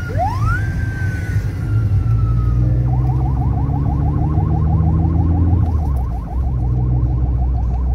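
Police siren, first a single wail that rises and then slowly falls, switching about three seconds in to a fast yelp of rising chirps, about four or five a second. It is heard from inside a following car, over the low rumble of that car's engine and tyres.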